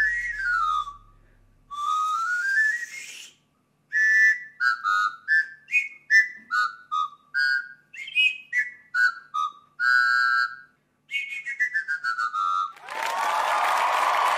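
3D-printed pan flute being played: a quick falling slide across the pipes, a rising slide, then a short tune of separate high notes, and another falling run. Near the end, crowd applause and cheering comes in.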